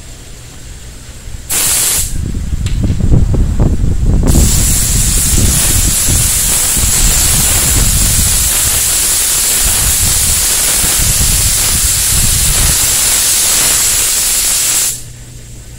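Compressed-air spray gun spraying thick headliner adhesive onto the headliner board. There is a short blast about a second and a half in, then a loud, steady hiss from about four seconds in that cuts off abruptly near the end.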